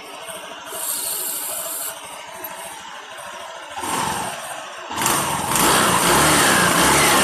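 Honda Vario 150 scooter engine and CVT revved up: a short rev about four seconds in, then from about five seconds a louder, held rev with a rising whine. This is the test after sanding the CVT's driven pulley, and the CVT no longer snores or slips.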